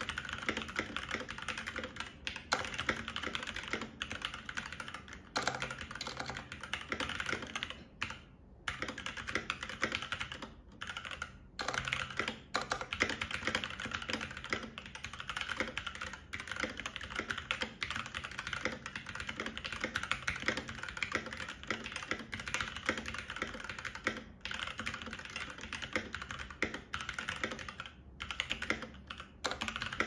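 Fast typing on a Blitzwolf BW-KB1 60% mechanical keyboard with Gateron Red linear switches: a dense, continuous clatter of keystrokes, loud but not annoyingly loud, the wider space bar sounding kind of hollow. The typing stops for a moment a few times, near 8 s and 11 s in.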